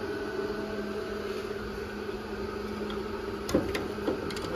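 A steady electrical hum over a faint hiss. Near the end come a few light clicks as the locking welding clamp is handled.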